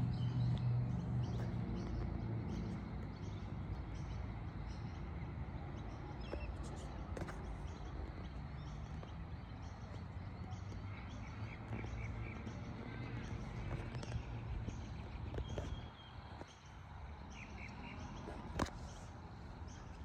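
Outdoor ambience with birds chirping over a low background rumble. The rumble fades away over the first few seconds, and a single sharp click comes near the end.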